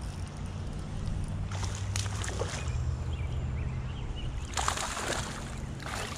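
Boat motor running with a steady low hum while water sloshes and splashes against the hull in short rushes, the strongest about two seconds and five seconds in.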